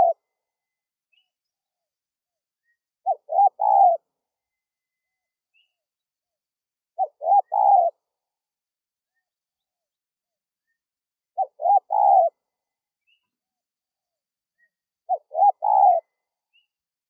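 Spotted dove cooing: a phrase of a few short coos building to a longer, louder last note, repeated about every four seconds, four full phrases in all.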